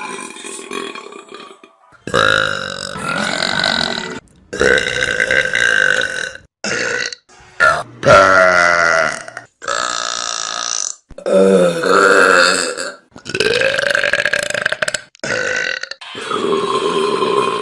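A string of about ten loud human burps, one straight after another, most lasting one to two seconds, several falling in pitch, each cut off sharply before the next begins.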